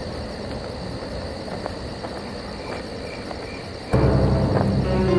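Night ambience of crickets chirping steadily, broken about four seconds in by a sudden loud, low rumbling sound that leads straight into dramatic music.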